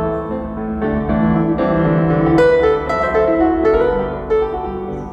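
Piano music played through Stark Sound hi-fi loudspeakers in a demonstration room, with held notes and a new chord about every second.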